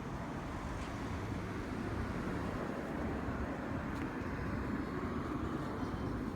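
Steady road traffic noise: a continuous rush of passing vehicles that swells slightly midway.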